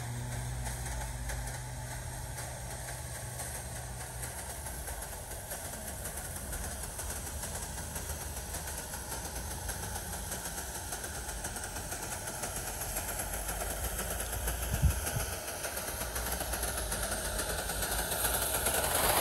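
O gauge live steam model LMS Compound locomotive running along the track, a steady mechanical running noise with one sharp knock about fifteen seconds in. It grows louder near the end as the engine comes closer.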